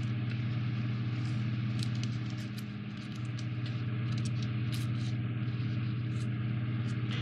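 Light rustling and small clicks of 3D-puzzle pieces being handled as a sail part is fitted to the model, over a steady low hum.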